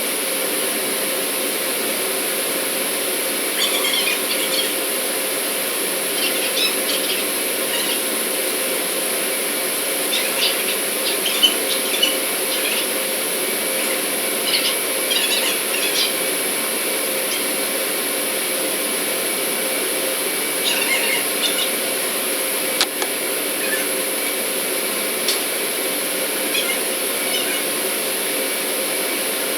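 Steady industrial machinery hum with fixed whining tones, overlaid by intermittent short clusters of metallic clinks and squeaks from work with tools.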